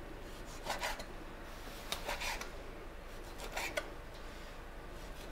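A sharp kitchen knife slicing through raw pork on a cutting board: three soft drawn cutting strokes, roughly a second and a half apart.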